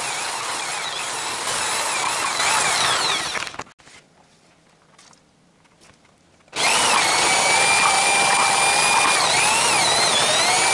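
Electric meat grinder running as it grinds tomatoes, its motor whine wavering in pitch with the load. It stops a little over a third of the way in and starts again a few seconds later.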